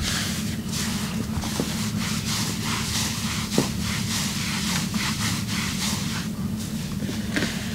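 Massage hands rubbing and stroking over the body in repeated strokes, over a steady low hum. There is a single soft click about three and a half seconds in.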